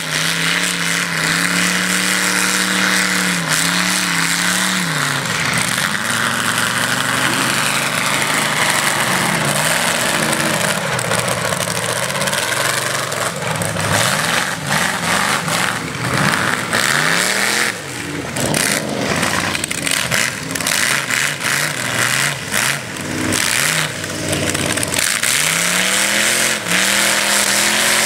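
Lifted mud truck's engine on big tires, held at a steady pitch for the first few seconds, then revving up and down repeatedly as it drives over the dirt.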